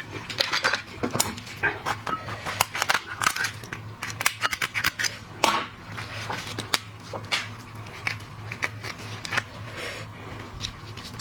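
Shellfish shells being cracked and snipped open, making many sharp irregular clicks and crunches in quick succession, over a steady low hum.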